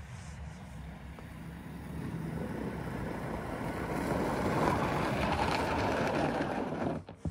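Electric-converted 1994 Yamaha Timberwolf ATV driving closer and passing by, its tyres and drivetrain making a rushing noise on packed snow with no engine sound. The noise grows louder as it nears, over wind on the microphone, and cuts off suddenly near the end.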